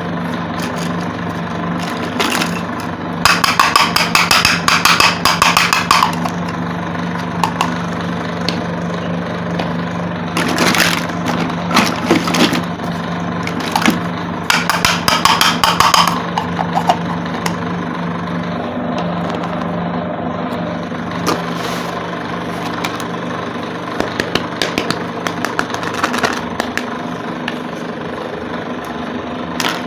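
Plastic toy pieces and packaging being handled, with three bursts of rustling and crinkling and scattered small clicks, over a steady low hum.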